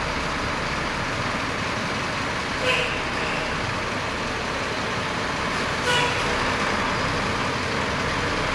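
Semi-truck's diesel engine running steadily as the tractor-trailer creeps forward. Two short sharp sounds cut through, about three seconds apart.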